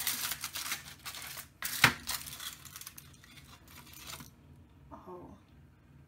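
Crinkling, scraping and clinking of an apple tart being cut and served with cutlery, with a sharp clink about two seconds in; it stops after about four seconds.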